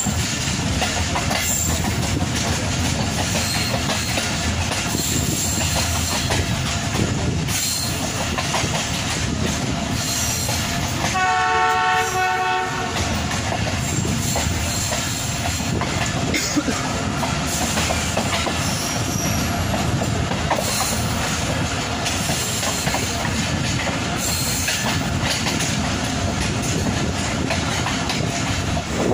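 Passenger train coach running along the track, heard from an open window: a steady rumble with wheel-on-rail noise. About eleven seconds in, a locomotive horn sounds once for about a second and a half.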